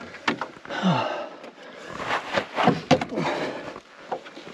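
A person breathing hard with sighs and gasps after a steep climb, with a few sharp clicks and knocks.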